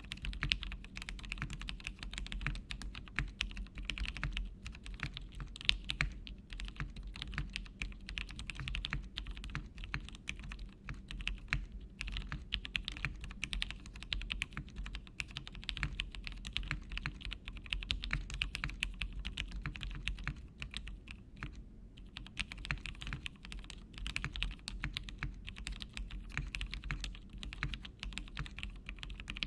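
Fast, continuous typing on a custom mechanical keyboard: a polycarbonate-cased Lyn Whale with a carbon fiber half plate, Gateron Ink switches and PBT keycaps. It is a dense stream of key clacks that starts abruptly, with brief pauses around a third and two-thirds of the way through.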